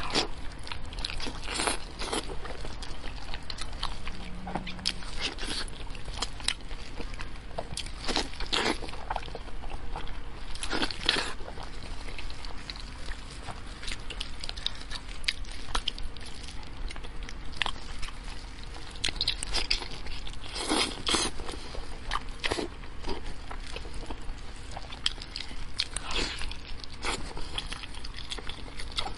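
Close-miked eating sounds: biting, chewing and wet smacking of meat and gristle pulled off a spiced sheep's head, with irregular crunches and clicks.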